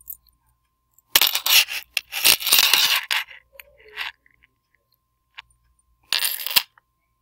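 A metal bracelet jingling and clinking against a desk in two bursts of rapid clatter: a longer one starting about a second in and a short one near the end.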